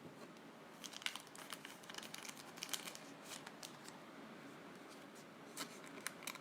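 Faint crinkling and crackling of a thin plastic card sleeve as a trading card is slid into it, most of it in the first few seconds with a couple of crackles near the end.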